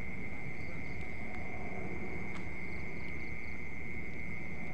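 Crickets trilling: one steady, unbroken high-pitched buzz held at a single pitch, with a few faint short chirps of other insects above it, over a low background rumble.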